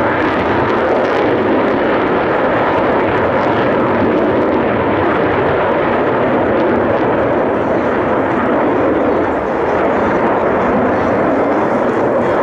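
Jet engine noise from a pair of Dassault Mirage 2000 fighters flying in formation: a loud, steady rush with no distinct tones.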